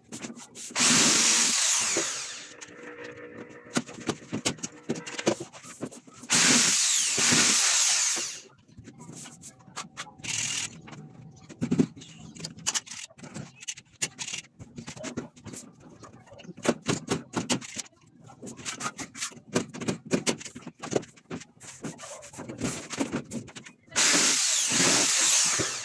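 Power drill driving screws through a plywood sheet into the wall frame: three whining bursts of about two seconds each, the first about a second in, one a few seconds later and one near the end, with short knocks and handling clatter of the sheet in between.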